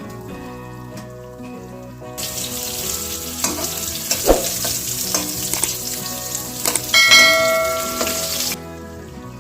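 Pointed gourd pieces sizzling as they fry in hot oil in a kadai, with clicks of stirring in the pan. The sizzle starts about two seconds in and cuts off abruptly near the end.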